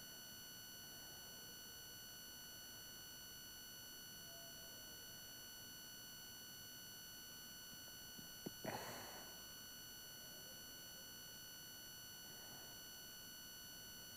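Near silence with a faint, steady high-pitched electronic whine and its overtones. About eight and a half seconds in there is a single soft click with a brief rustle.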